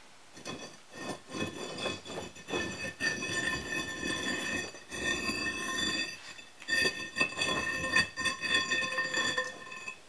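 A long silicon carbide heating element grinding and scraping against the furnace's refractory as it is drawn out of its hole, with a steady high squeal ringing over the rasp. It comes in two long pulls, with a short pause about six seconds in.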